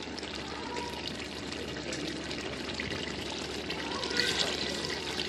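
Water pouring steadily from a metal jug into a cooking pot of fried mutton trotters, splashing into the thick masala.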